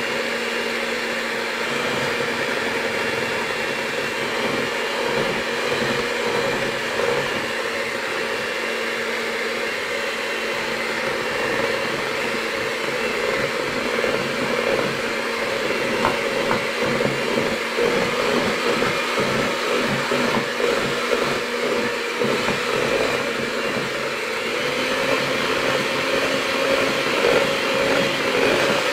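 Electric hand mixer running steadily, its beaters whisking a thick batter of eggs, sugar, oil and cornstarch in a plastic bowl.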